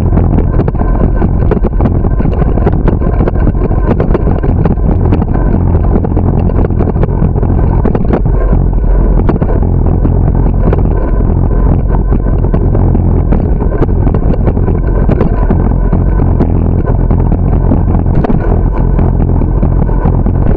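Steady, loud rumble of riding a bicycle, heard from a camera carried on the bike: wind on the microphone mixed with tyre and road noise, with many small rattles and clicks.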